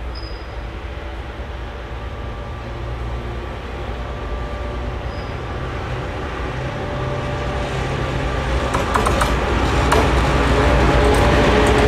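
DB class 232 'Ludmilla' diesel locomotive, with its V16 diesel engine, hauling a heavy freight train toward the listener, its steady engine drone growing louder throughout. From about three-quarters of the way in, clicks of the wheels on the rails join in.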